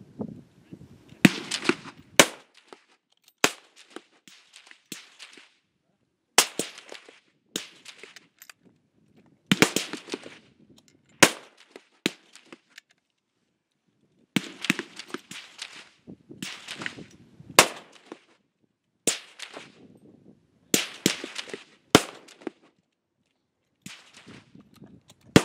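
A string of rifle shots from the firing line, about fifteen, at irregular intervals of one to three seconds, each sharp crack trailing off in a short echo.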